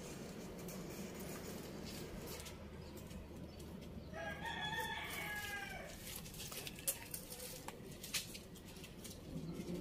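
A rooster crowing once, a call of about two seconds starting about four seconds in, over a steady low background hum, with two short sharp clicks a few seconds later.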